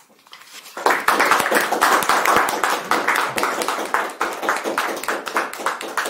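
Audience applauding, made up of many individual hand claps. It starts about a second in, after a short pause, and thins out toward the end.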